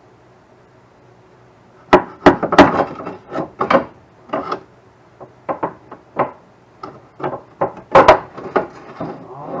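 Irregular knocks and clanks of tools and metal parts being worked under a car during sway bar replacement, starting about two seconds in and going on in an uneven run of sharp hits, some of them loud.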